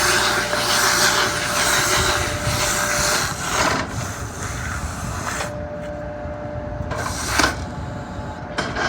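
SB850 electric stationary baler running with a steady motor hum. A loud hissing rush over the first three seconds or so drops away, and a few sharp knocks follow in the second half.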